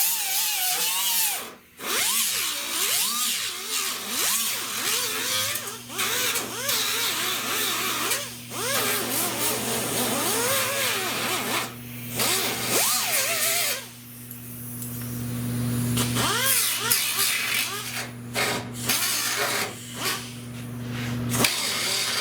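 Handheld power tool working sheet metal, running in long stretches with a few brief pauses, its pitch rising and falling as it is loaded. A steady low hum runs underneath and grows stronger in the second half.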